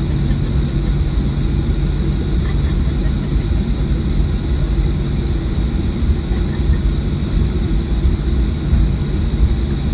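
Cabin noise inside a Boeing 737-800 taxiing after landing: its CFM56-7B engines at idle give a steady low rumble with a constant hum.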